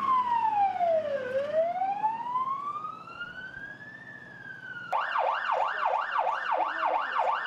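Ambulance siren: an electronic wail that sweeps slowly down in pitch, then back up. About five seconds in it switches to a fast yelp of about three sweeps a second.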